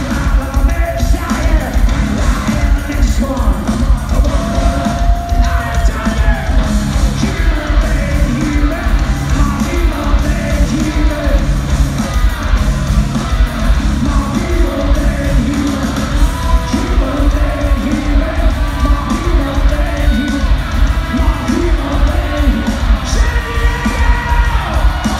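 Heavy metal band playing live through an arena PA, with yelled vocals over the loud band, heard from among the audience in a large hall.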